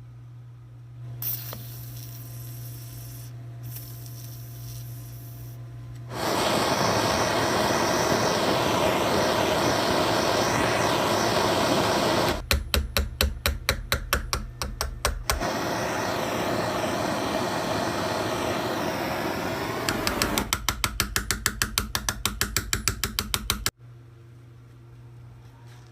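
Shop tool working the rusted steel of an old wrench: a steady abrasive noise that comes in about six seconds in, twice giving way to a run of rapid, evenly spaced strokes, and cutting off suddenly near the end.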